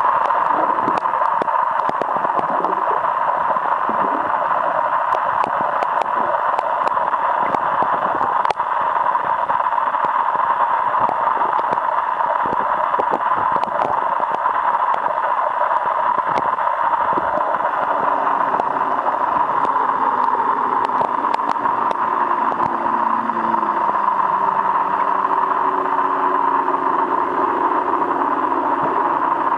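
Underwater ambience picked up by a submerged camera: a steady, muffled rushing hiss of water with scattered sharp clicks. About two-thirds of the way through, a faint low drone joins in.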